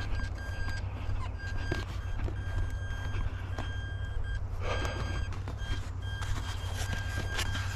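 An electronic beeper sounding short high beeps, one every second or so, over a steady low rumble, with a brief rustle about 5 seconds in.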